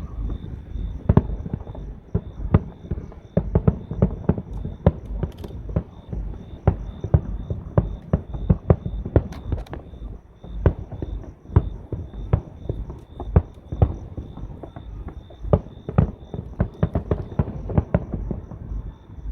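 Fireworks going off in a dense, irregular string of bangs and thumps, several a second, with no pause.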